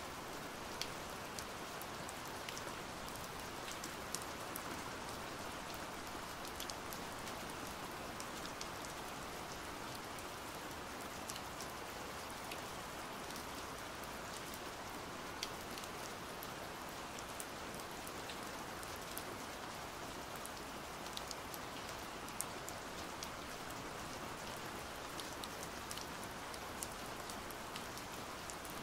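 Steady pouring rain: an even hiss with many sharp individual drop clicks scattered through it.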